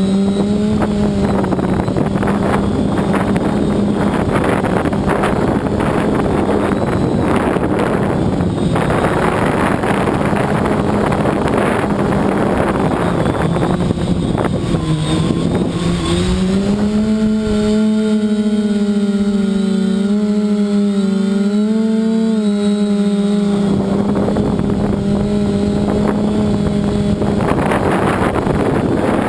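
Motors and propellers of a 580 mm FPV multirotor drone droning at a steady pitch that dips and rises with throttle. Heavy wind buffets the microphone, easing for a few seconds past the middle.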